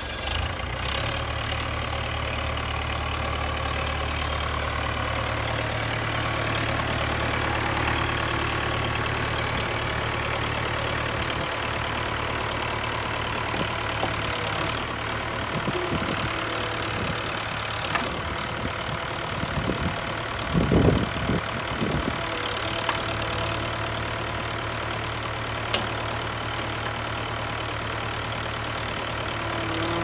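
Caterpillar 416 backhoe loader's diesel engine idling steadily, with a few louder clunks about two-thirds of the way through.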